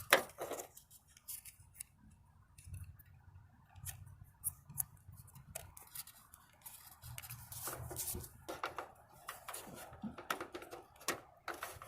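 Faint, scattered small plastic clicks and rustles as the wiring of an LED sidemarker lamp is handled and pressed into the retaining clips of its housing.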